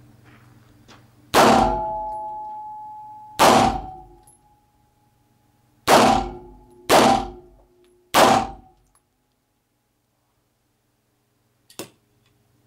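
Five shots from a Beretta M9A3 9×19 mm pistol, each ringing on in the reverberant indoor range: two about two seconds apart, then three closer together. One short click near the end.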